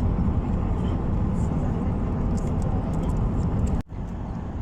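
Steady rumble of a moving vehicle, heard from on board, with a sudden break near the end.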